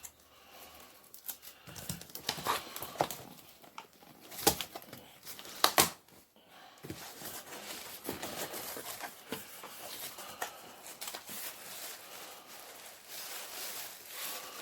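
A parcel being opened by hand: cardboard and packing tape tearing, and bubble wrap rustling and crinkling, with two sharp, louder snaps about four and a half and six seconds in.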